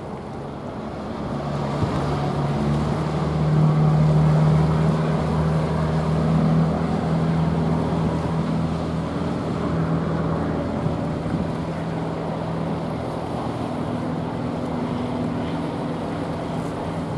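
Low, steady drone of a passing bulk carrier's diesel engine and exhaust, over a hiss of wind and water. It grows louder over the first few seconds, then holds steady.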